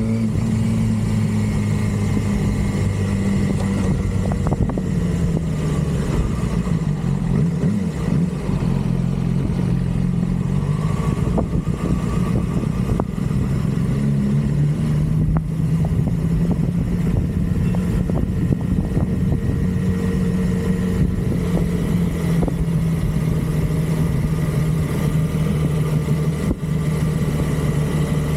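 A 2006 Yamaha R6's 599 cc inline-four engine running continuously at a steady, fairly high pitch. The pitch wavers slightly and drops a little about halfway through, then holds.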